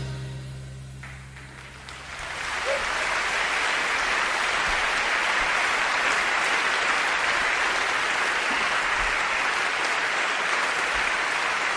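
Brass swing music fading out in the first two seconds, then a steady, even noise like continuous applause.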